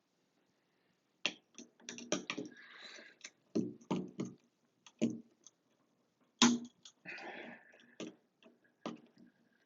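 Irregular sharp clicks and taps with two brief scrapes: a metal retaining clip being worked back into a Moen shower valve body around the cartridge.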